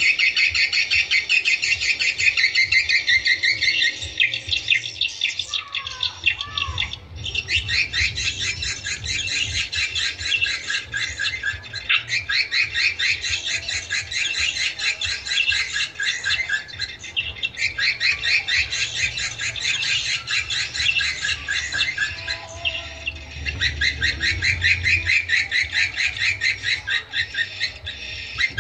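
Swiftlet lure calls: edible-nest swiftlets' dense, rapid twittering chirps, repeated in long runs broken by short pauses every few seconds. A couple of lower gliding notes come in about six seconds in.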